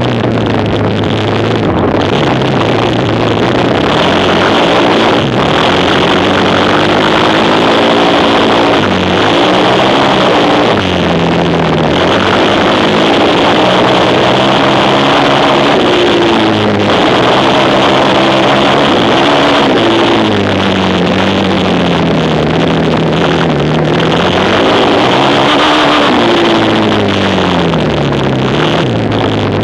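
Racing quad engine under hard use, its pitch climbing and dropping back every few seconds as the throttle opens and closes, over a steady loud rush of noise.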